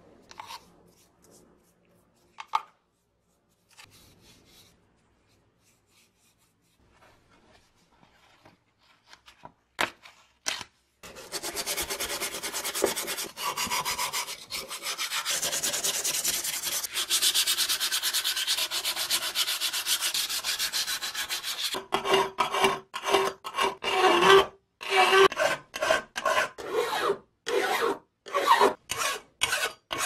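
Abrasive paper rubbed by hand over the rusty metal body of an old car horn. There are faint scrapes and taps at first, then about ten seconds of continuous rubbing, then separate quick strokes at about two a second.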